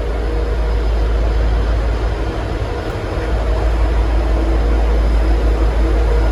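V/Line N class diesel-electric locomotive's engine running with a steady low rumble while it stands ready to depart, growing slightly louder about three seconds in.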